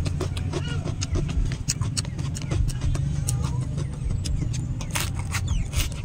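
Crisp clicks and crackles of fresh lettuce leaves and herbs being handled and chewed, with the mouth noises of eating close to the microphone, over a steady low rumble.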